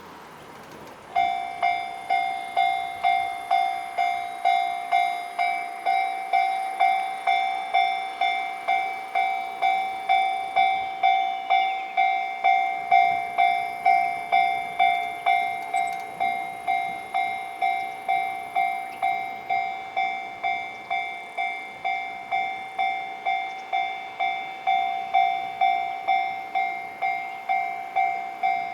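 Japanese level crossing's electronic warning bell starting suddenly about a second in, then ringing in steady, even strikes at about two a second, the signal that a train is approaching and the barriers are coming down.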